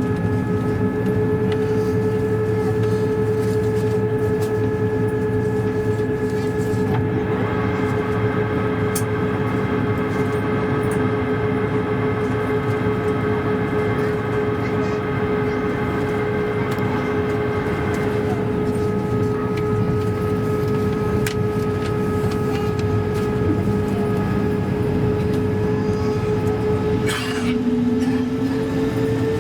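Airbus A220-300 cabin noise: a steady hum under several steady whining tones. A short rising tone comes in near the end.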